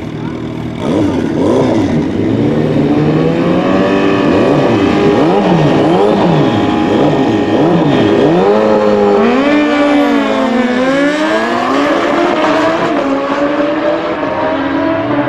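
Two inline-four superbike engines, a Kawasaki Ninja and a Suzuki Hayabusa, revving up and down repeatedly at the start line, then going to full throttle about nine seconds in and accelerating hard, the pitch climbing through the gears.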